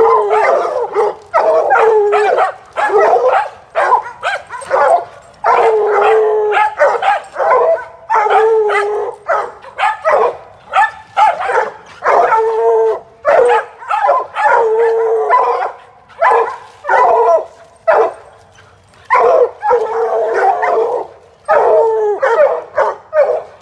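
Several hounds barking and bawling together, a continuous overlapping chorus of baying at a tree where a cage trap hangs: treeing. The chorus eases briefly about two-thirds of the way through, then picks up again.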